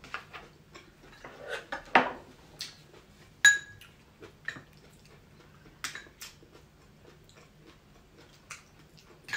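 Metal spoons clinking against ceramic bowls of rice porridge, a scatter of sharp clicks with one clear ringing clink about three and a half seconds in, between quieter sounds of chewing.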